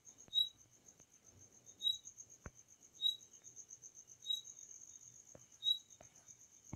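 Faint insect chirping: a steady high trill with a sharper chirp repeating about every second and a quarter, and a few soft clicks.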